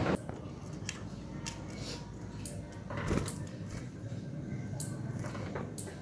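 Budgerigars giving short, high chirps scattered through, with a soft knock about three seconds in.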